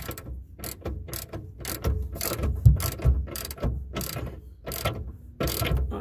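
Irregular metal clicks, taps and scrapes of a plumbing fitting being handled and threaded onto the water heater's check valve line.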